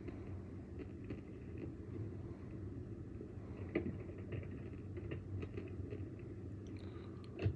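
Low, steady rumble of a car's cabin as it rolls slowly out of a driveway and onto the street, with faint light ticks and a slightly louder tick a little under four seconds in.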